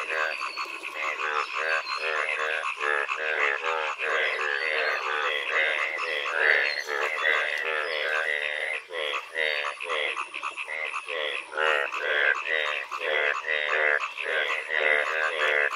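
Breeding chorus of male Indian bullfrogs: many frogs croaking over one another in quick, repeated pulsed calls, without a break.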